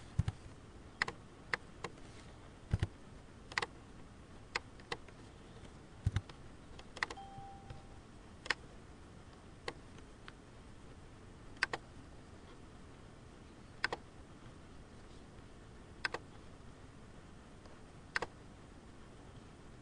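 Scattered computer keyboard keystrokes and mouse clicks, one sharp tap every second or two, some in quick pairs. A short faint tone sounds about seven seconds in.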